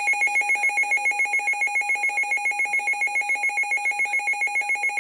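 A weather radio's electronic alert alarm sounding for a tornado warning: a fast, warbling two-tone beep pulsing about seven or eight times a second.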